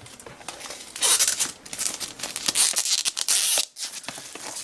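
A product box's packaging being torn and opened by hand: rustling, tearing and crinkling, busiest from about a second in, with a brief lull near the end.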